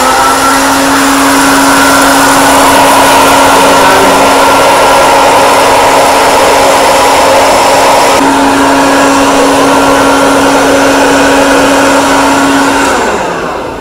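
Small hot-air fryer of the popcorn-popper kind running, its fan motor blowing hot air with a steady hum to fry vadiyalu without oil. About 13 seconds in it is switched off and the hum falls in pitch as the motor spins down.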